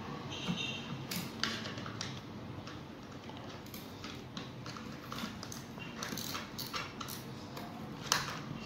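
Scattered small clicks and taps of plastic parts being handled and fitted on a Tefal steam iron's housing, with one sharper click near the end.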